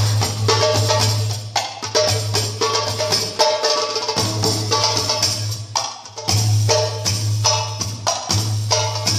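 Darbuka played in a fast rhythm of sharp strokes over music with a steady low drone and held notes, with short breaks about four and six seconds in.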